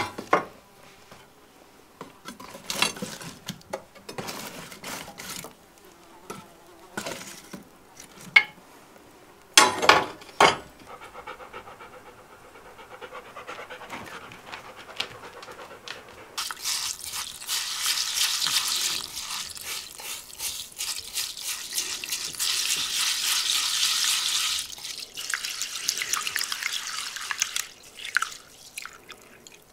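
Scattered light knocks and clicks, then a stream of water for about twelve seconds, starting about sixteen seconds in.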